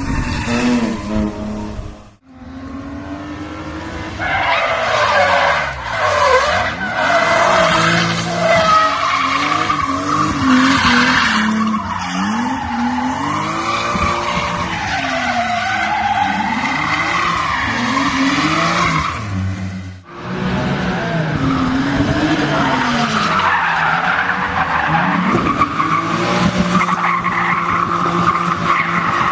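Cars drifting: engines revving up and down over and over while the tyres screech in long slides. The sound breaks off abruptly twice where one clip cuts to the next.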